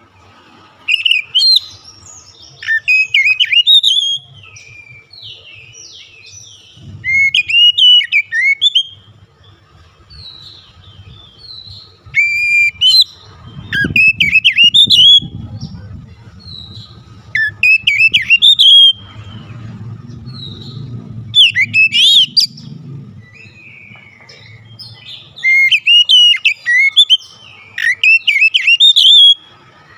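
Oriental magpie-robin singing: about half a dozen loud bursts of quick, varied whistled and chirping phrases, each a second or more long, with short pauses between.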